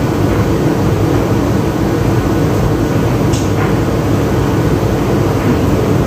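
A loud, steady machine-like rumble and hum, with two faint short falling chirps about halfway through.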